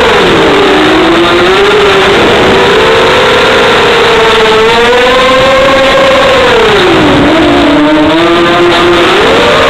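FPV racing drone's electric motors and propellers whining, several close tones rising and falling together as the throttle changes. The pitch drops clearly about half a second in and again about seven seconds in, then climbs back.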